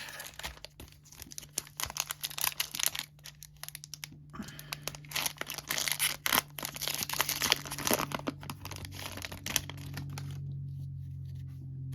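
Plastic-wrapped trading card packs from a football card blaster box being torn open, the wrappers crinkling and ripping in a dense run of crackles. The crackling stops about ten seconds in, leaving a low steady hum.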